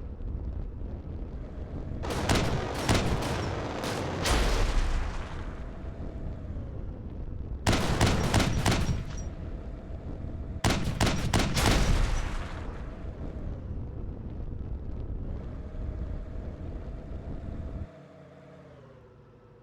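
A running engine with three bursts of rapid, loud bangs, typical of exhaust backfires shooting flames. Near the end the sound drops sharply and the engine note settles lower.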